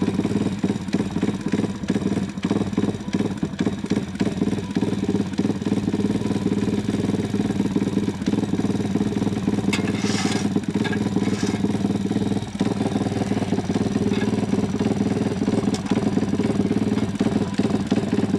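Pitbike's single-cylinder four-stroke engine idling steadily, run briefly after an oil change so the fresh oil circulates before the level is rechecked.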